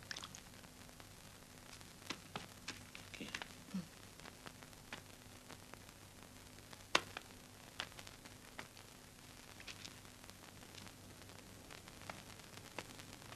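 Quiet, steady hiss and low hum of an old film soundtrack, with scattered faint clicks and pops at irregular intervals; the sharpest click comes about seven seconds in.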